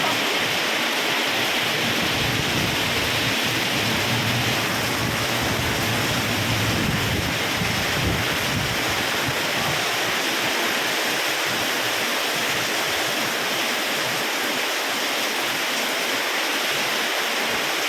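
Heavy rain pouring down in a strong wind storm: a steady, even rushing noise, with some low rumbling gusts for a few seconds near the middle.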